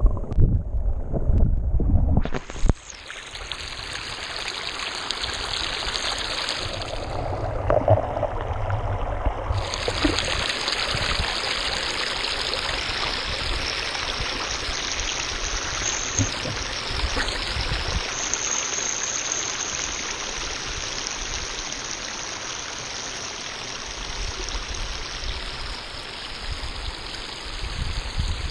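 Hot-spring water running and splashing over a mossy rock. For the first two and a half seconds it is a muffled low rumble heard with the camera underwater, then it turns to a steady open rush, dulled again for a few seconds around eight seconds in.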